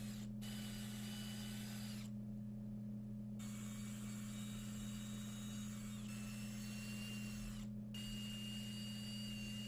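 A steady low hum with a faint high thin whine over it. The whine cuts out abruptly three times, about a third of a second in, for over a second near two seconds in, and briefly near eight seconds. There is no distinct tool strike or screwing action.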